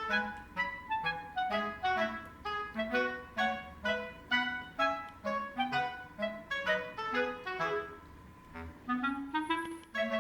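Background music: a light tune of short, detached notes over a lower bass line, with a brief lull about eight seconds in followed by a short rising run of notes.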